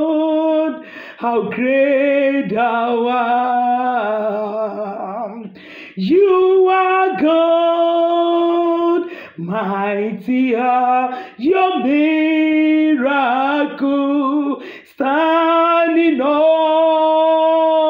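A woman singing a worship song unaccompanied, in phrases of long held notes with short breaths between them.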